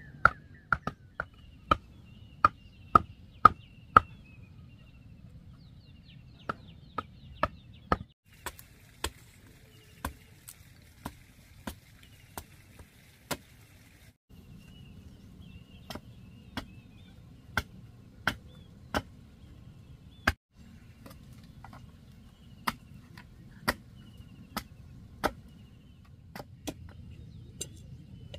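Bamboo being chopped with a machete on a wooden chopping block: sharp, irregular strikes about one or two a second. Small birds chirp faintly in the background at times.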